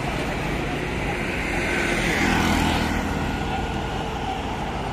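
Highway traffic noise, with a motor vehicle passing close by and growing loudest about two and a half seconds in before fading back into the steady road rumble.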